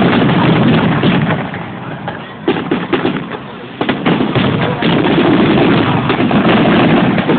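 Fireworks display: aerial shells bursting in quick succession, a dense run of booms and sharp bangs. It eases off briefly about two seconds in and builds again from about four seconds.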